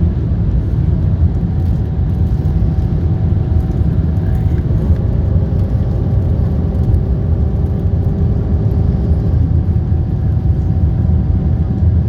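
Airbus A340 in motion: a loud, steady low rumble with faint steady whining tones above it.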